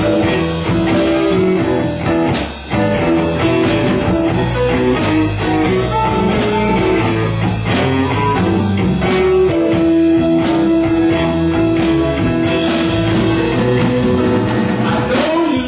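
Live blues band playing: an electric guitar leads with long held notes and bends over drums and bass, with no vocals.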